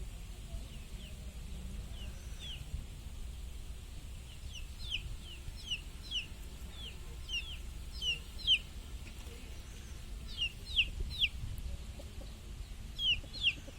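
Free-range desi chickens calling in a string of short, high, falling cheeps, several a second at times, with the loudest notes near the middle and again near the end, over a low steady background rumble.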